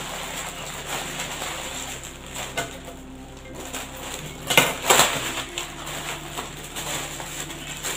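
Plastic courier mailer and clear plastic bag crinkling and rustling as they are pulled open by hand, with two louder rustles about halfway through.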